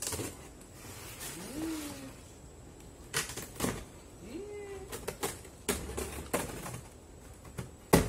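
Cardboard box being worked open by hand: rustling and scraping of the flaps, with a string of sharp clicks and knocks from about three seconds in. The loudest is a sudden hit at the very end.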